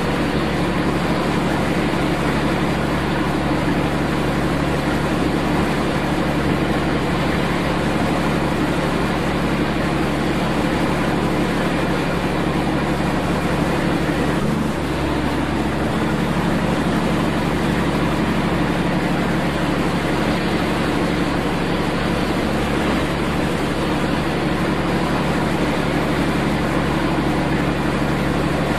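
Steady drone of a ship's machinery: a constant low hum under an even wash of noise that does not change.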